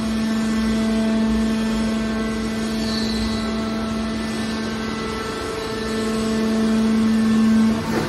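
Hydraulic power unit of a scrap metal baler running with a steady hum as the ram pushes a compressed wire bale out of the chamber. The hum grows louder over the last couple of seconds, then drops off abruptly just before the end.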